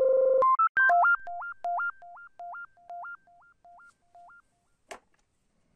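Electronic synthesizer intro jingle. It opens with a buzzy held note and a quick rising run, then a repeating two-note upward figure that fades away like an echo over about three seconds. A single short click comes near the end.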